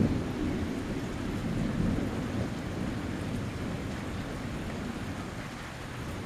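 Steady rain falling while thunder rumbles low in the distance, swelling at the start and again about two seconds in, then slowly fading.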